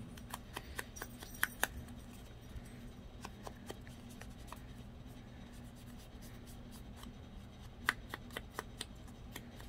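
Ink dauber dabbing and rubbing along the edges of a small paper word strip: light taps and paper rustling, in quick clusters near the start and again near the end, over a faint steady hum.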